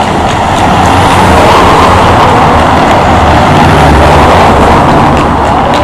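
A car driving past close by on a brick-paved street: engine hum and tyre noise swell and then ease off near the end.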